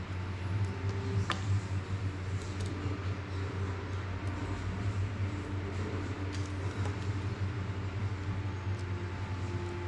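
Steady low hum of room noise with a few faint clicks and taps as small tools and plastic drone parts are handled, the clearest about a second in.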